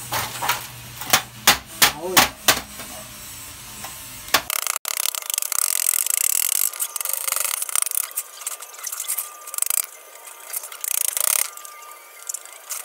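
Several sharp knocks of a wooden block striking the edge of a galvanized steel sheet laid over a steel frame, then steady scraping and rubbing as the block is pressed and slid along the sheet to fold its edge down.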